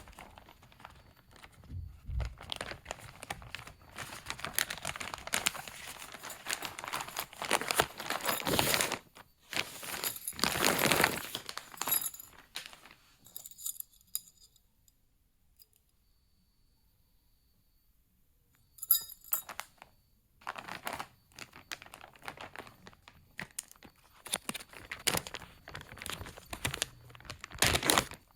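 Plastic packaging crinkling and rustling in irregular bursts, with some tearing, as a parcel is unwrapped. It goes nearly quiet for a few seconds about halfway through, then the rustling starts again.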